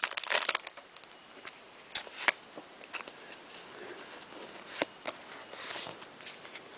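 Foil wrapper of a Pokémon trading card booster pack crinkling about half a second in, then scattered light clicks and rustles as the cards are handled.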